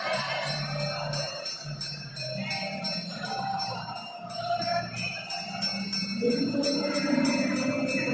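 Music with jingle bells shaking on a steady beat, growing fuller and louder about six seconds in.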